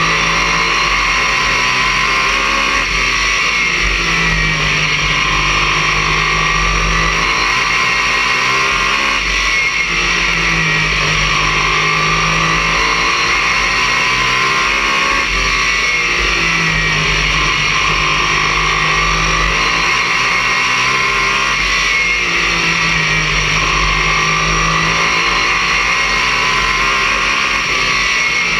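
Race car engine at racing speed, heard from inside the cockpit: loud and distorted, its pitch rising and falling about every six seconds as the car is driven through the straights and turns of the oval.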